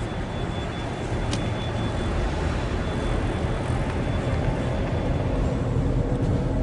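Steady engine and road noise of a car driving slowly, with a low rumble.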